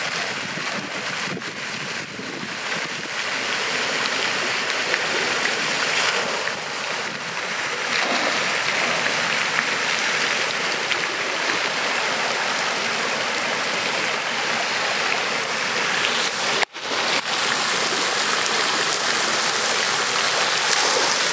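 Steady storm rain falling, an even, unbroken hiss. It cuts out for an instant about three-quarters of the way through.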